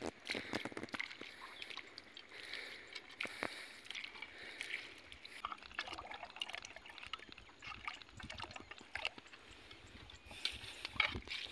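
Hand working in wet mud and shallow water beside a log: soft sloshing and trickling, with scattered small wet clicks and squelches at irregular intervals.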